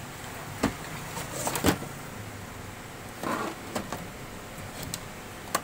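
Handling noise from a CRT TV chassis board and its wires being moved by hand: several sharp knocks and clicks, the loudest about a second and a half in, and a short rustle a little past the middle, over a faint low hum.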